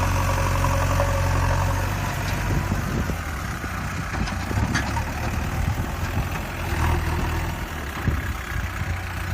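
A backhoe's engine running at a steady low idle. After about three seconds the hum grows more uneven, with a few light clicks.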